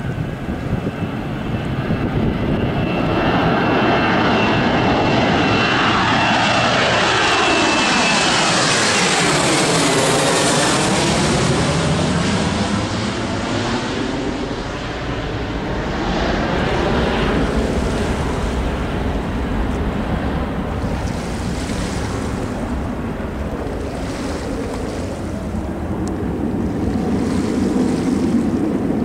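A Boeing 737 twin-jet airliner's engines at takeoff power as it lifts off and climbs out overhead: a loud jet roar and whine with a swirling, phasing sweep as it passes. It is loudest from about four to eleven seconds in, then fades as the aircraft climbs away.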